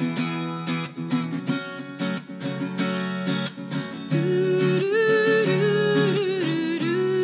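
Acoustic guitar strummed in a steady rhythm of chords. About four seconds in, a woman's voice comes in over it, singing long held notes.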